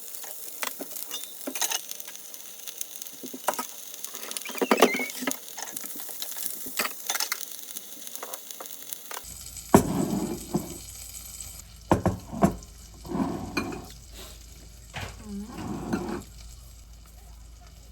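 Pollock roe sizzling as it fries in a pan, a steady hiss with small clicks and scrapes of a utensil. About nine seconds in, the sizzle drops away and a few short, louder sounds follow, sharp knocks among them.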